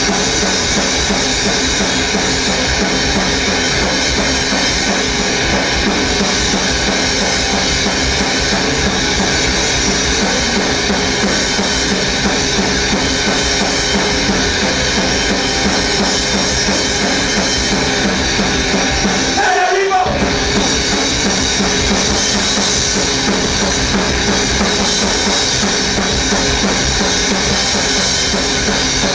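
Groove metal band playing live, an instrumental passage with the drum kit to the fore and cymbals. About twenty seconds in the low end drops out for a moment, then the full band comes back in.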